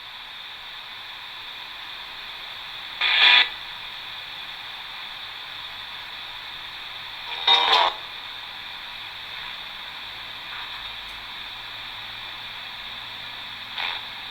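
Spirit box scanning radio frequencies: a steady static hiss broken by short bursts of radio sound, two loud ones about three and seven and a half seconds in and a fainter one near the end. One of the bursts is heard by the investigator as a voice saying "go home".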